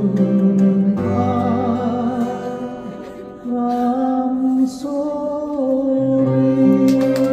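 Live ballad music with singing: long held notes and sustained chords, a wavering held vocal note at the start, the music dipping about three seconds in and then swelling into long sustained final notes.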